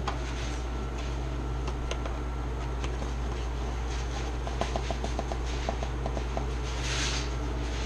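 Steady low mechanical hum, with a quick run of about a dozen light clicks about halfway through and a short soft hiss near the end.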